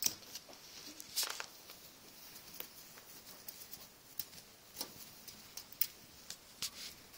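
Guinea pigs scrambling about on wood-shavings bedding: scattered rustling, scratching and light clicks from their feet and the shavings, with a few louder crackles.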